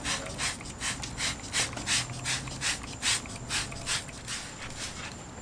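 A quick, even run of short hissing strokes from car-detailing work, about two or three a second.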